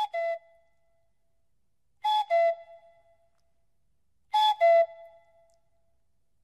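Cuckoo call sound effect: the two falling notes of "cuck-oo", repeated three times about two seconds apart.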